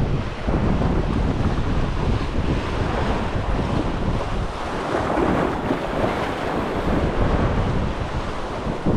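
Wind buffeting the microphone, with waves washing on the water underneath, swelling a little just past the middle.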